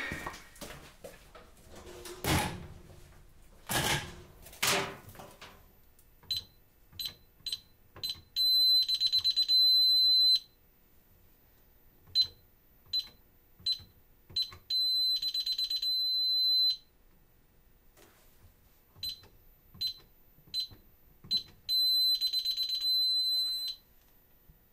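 Security alarm keypad beeping: four short high key-press beeps, then a longer high tone of about two seconds, heard three times over as the code is entered again and again. The alarm system does not arm, so the long tone is its refusal. A few dull thuds come before the first beeps.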